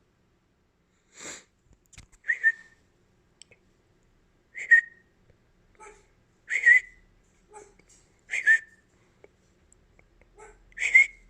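African grey parrot giving short whistled calls, about five of them roughly two seconds apart. Each is a brief raspy note ending in a sharp whistle.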